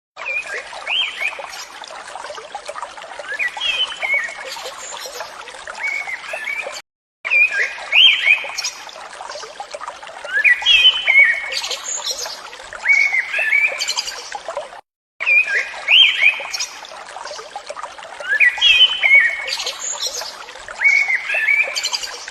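Songbirds chirping in short repeated phrases over a steady trickle of running water. It is a short nature-sound loop that repeats about every eight seconds, with a brief silent gap between repeats.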